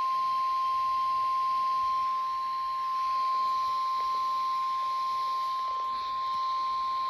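NOAA Weather Radio warning alarm tone: one steady tone near 1 kHz held unbroken for several seconds. It is the signal that a warning broadcast is coming next, here a special marine warning.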